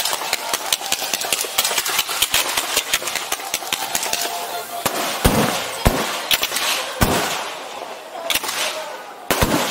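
A string of firecrackers going off in a rapid crackle of pops, thinning out after about four seconds into a handful of scattered, louder bangs.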